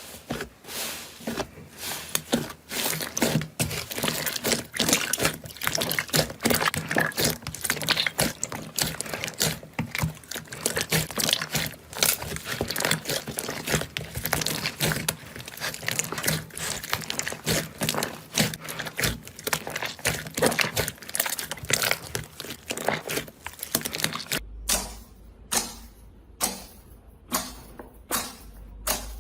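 Slime being squeezed and pressed by hand, giving dense, crackly clicks and pops. About 24 seconds in it changes to separate crisp clicks, about two a second, over a low hum.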